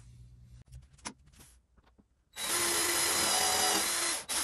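Cordless drill fitted with a countersink bit, drilling a pilot hole and countersink into a 3/4-inch melamine board. The motor runs at a steady speed for about two seconds, starting a little past halfway, then cuts off, with a short burst just before the end. A couple of light knocks come earlier.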